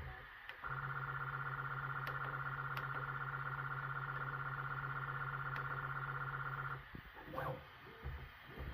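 Bambu Lab P1P 3D printer's stepper motors whining steadily for about six seconds as the printer moves, cutting off abruptly, with short buzzing moves just before and after.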